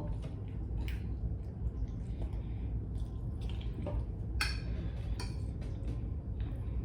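Eating sounds from a meal taken by hand: a few short clicks and soft smacks, with a light clink of a dish, over a steady low hum.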